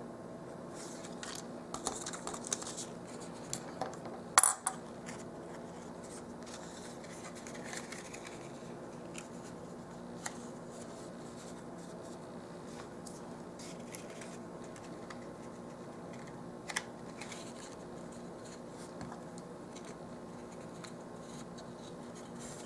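Hands handling cardstock and small metal-and-plastic spring clamps on a tabletop: soft scrapes and a few light clicks and knocks, the sharpest about four seconds in, over a steady low room hum.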